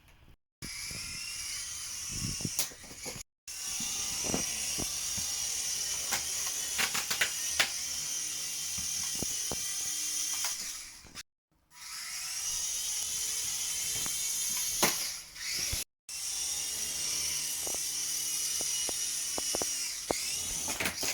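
Small electric rotor motors of a toy remote-control helicopter whining steadily at a high pitch, with scattered knocks and clicks. The sound breaks off briefly four times.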